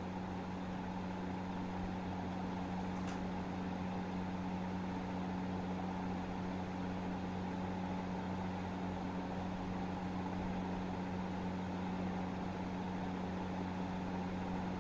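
A steady, unchanging low hum with an even faint hiss under it, with a single faint click about three seconds in.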